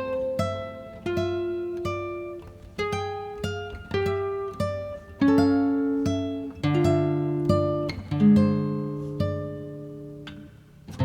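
Background music: acoustic guitar picking notes and chords that ring out and fade, with a short pause near the end before a strummed chord.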